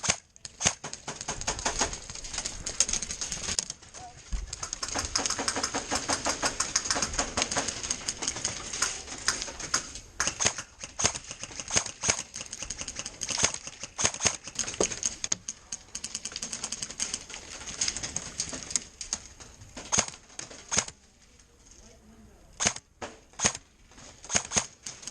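Airsoft guns firing in rapid strings of sharp clicking shots, thinning out near the end to a few single shots.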